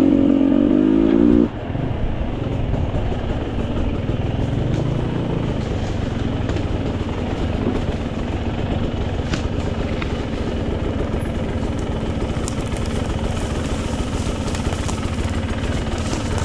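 Off-road dirt bike engine running while riding a trail, louder and revved harder for the first second and a half, then running on steadily.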